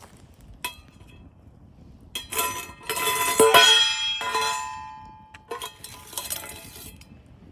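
Metal camp cookware and utensils clattering and clinking together, with ringing tones. A single clink comes about a second in, then a loud run of clatter that dies away, then more clinks near the end.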